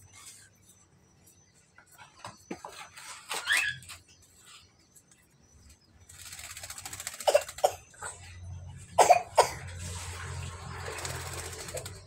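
Caged white-vented myna (jalak kebo) making harsh, rasping calls. A few scattered clicks come first, and about halfway through a long raspy hiss sets in, broken by several loud, sharp squawks.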